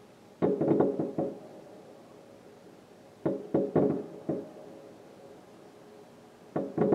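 Aerial fireworks bursting: three clusters of sharp bangs, each a quick run of several reports, about three seconds apart.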